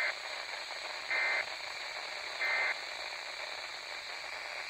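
Emergency Alert System digital data tones: three short warbling bursts about a second apart, the end-of-message signal of the alert. They play over steady radio hiss and static.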